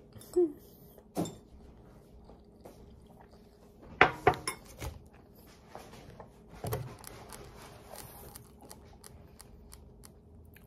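Metal utensil clinking and scraping against a ceramic bowl while eating, in scattered short clicks. The loudest cluster comes about four seconds in, another clink near seven seconds, and lighter taps after that.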